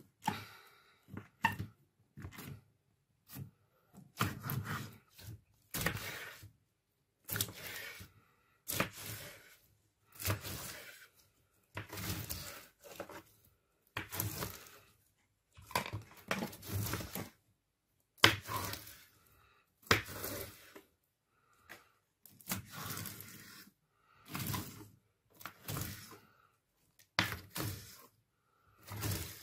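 A knife slicing again and again through a thick slab of clear slime down to a wooden tabletop. There is roughly one short crackly cut a second.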